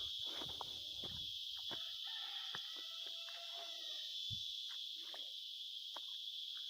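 Steady high-pitched insect chorus, a continuous shrill drone, with a few faint clicks and knocks over it.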